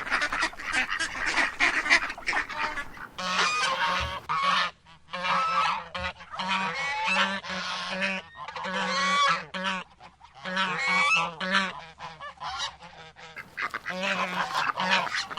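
A flock of waterfowl calling, many short calls overlapping one another in quick succession.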